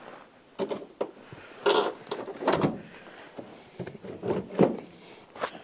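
The sheet-metal access door on a Central Boiler Classic Edge 350 outdoor wood boiler being handled and swung open. It makes an irregular string of scrapes, rubs and knocks.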